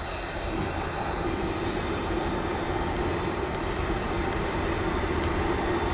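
Handheld electric blower running steadily, forcing air into the charcoal and wet firewood of a barbecue pit to get the fire going: a rushing blast of air with a steady motor hum.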